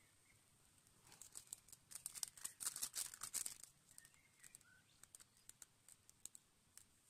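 A packet crinkled and torn open by hand in a burst of crackling that starts about a second in and lasts two to three seconds, then a few scattered small rustles. Faint bird chirps now and then.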